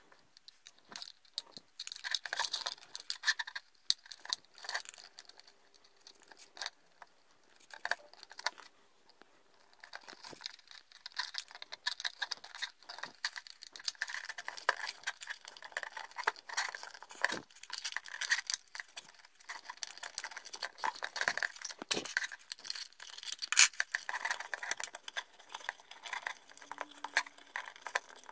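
Handling noise of wires and small electronics being fitted into a 3D-printed plastic boat hull: light clicks, taps and rustles of cables and plastic parts, scattered at first and near-continuous from about ten seconds in.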